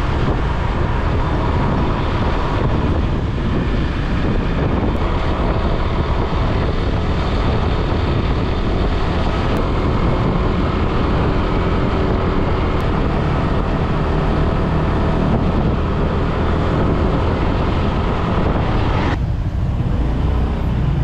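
Steady vehicle running noise with wind rumbling on the microphone, as when riding along. Near the end the higher part of the noise cuts off suddenly.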